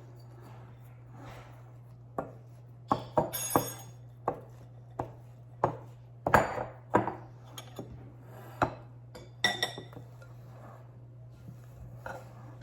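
Kitchen bowls, utensils and containers knocking and clinking as they are handled: scattered knocks at irregular intervals, twice with a short ringing clink, over a steady low hum.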